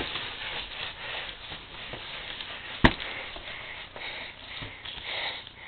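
Soft rustling and breathy noise close to the microphone, with one sharp knock about three seconds in.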